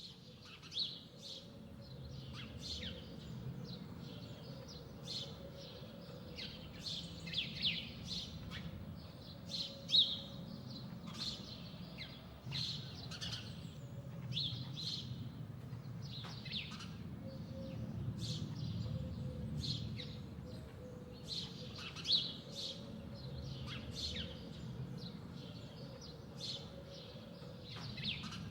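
Songbirds chirping and calling in many short notes over a steady low rumble, fading in at the very start.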